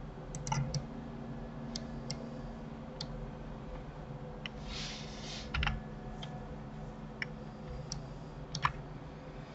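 Scattered clicks of computer keyboard keys and mouse buttons, about a dozen at uneven intervals, over a low steady hum, with a brief hiss about five seconds in.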